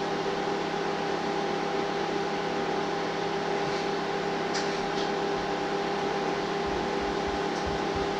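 Steady machine hum: several even pitched tones over a constant hiss, with a couple of faint ticks near the middle.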